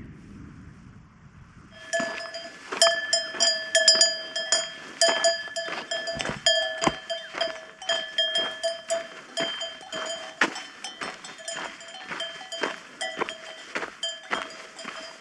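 Cowbell clanking irregularly as the animal wearing it moves, starting about two seconds in, with its ringing tone carrying on between the strikes.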